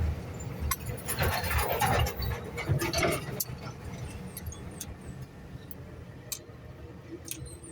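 Scattered clicks and light metal knocks of hand tools being used on a motorcycle engine during a top overhaul, denser in the first few seconds and sparser after, over a steady low hum.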